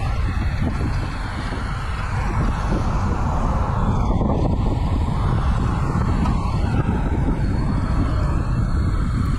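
Steady wind rumble buffeting the microphone of a camera carried on a road bicycle while riding.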